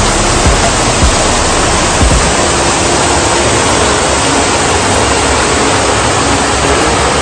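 Water cascading over the rim of a tiered fountain basin into the pool below: a steady, loud splashing rush, with a few low bumps on the microphone in the first two seconds.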